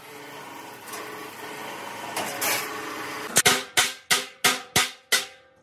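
A hand hammer striking a steel air-compressor tank: a quick run of about seven sharp blows, about three a second, in the last two seconds, with the tank left ringing. Before the blows, a rough hissing noise builds for about three seconds.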